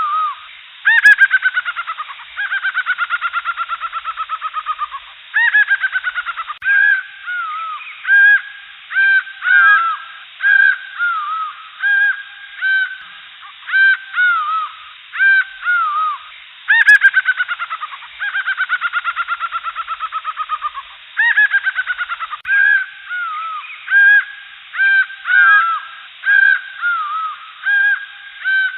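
Jungle birds calling: many short, loud, arching calls in quick succession. Twice, about a second in and again about seventeen seconds in, a long run of rapid notes slowly falls in pitch over several seconds.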